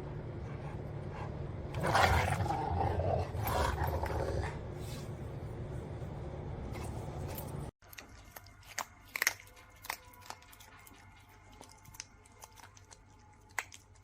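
A dog growling for about two seconds over a steady low hum. Then, after a sudden cut, the sound drops to a quiet stretch with a few scattered sharp clicks and taps.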